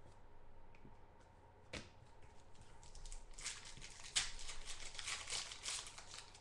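A single tap, then the foil wrapper of a football trading-card pack crackling and rustling as it is torn open and peeled off the cards, from about three seconds in.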